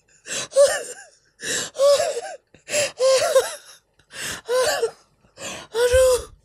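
A man laughing hard in breathless, wheezing gasps, about six bursts broken by short pauses for breath.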